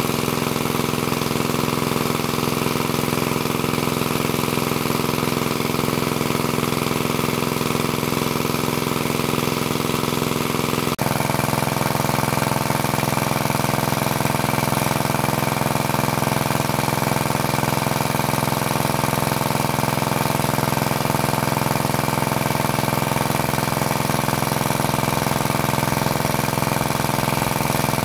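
Engine of a high-capacity water pump running steadily at a constant speed, pumping water out. About eleven seconds in the sound switches abruptly to a different steady engine tone.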